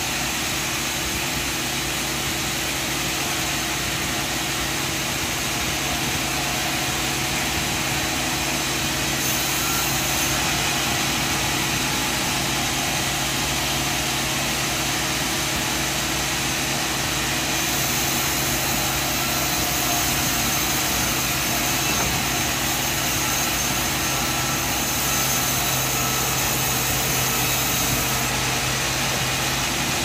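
Sawmill machine running steadily, its motor giving an even drone with a constant low hum and no cuts or changes.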